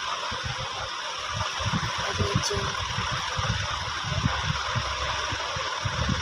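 Steady machine-like background noise, a hum and hiss like a running fan or motor, with irregular low rumbles.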